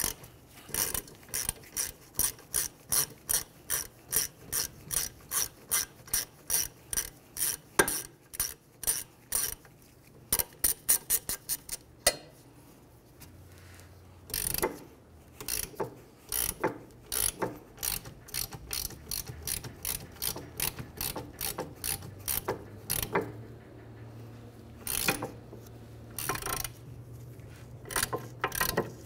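Hand ratchet clicking in repeated strokes, about two a second, as the 14 mm bolts holding a rear wheel hub bearing assembly are backed out. There is a brief pause about halfway through before the clicking resumes.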